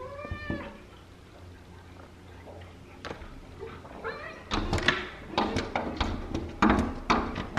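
A short pitched animal cry near the start. From about halfway, a fast run of knocks and scrapes as Alaskan malamutes paw and mouth at a glass door.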